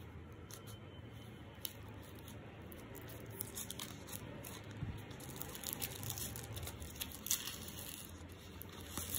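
A small knife blade slitting open a paper envelope: paper tearing and scraping in short, scratchy strokes. Near the end the paper rustles as the envelope is pulled open by hand.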